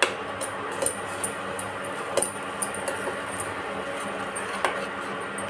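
A spoon stirring a thick ginger-and-jaggery mixture in a pan as it cooks, knocking and scraping against the pan in a series of sharp, irregularly spaced clinks over a steady hiss.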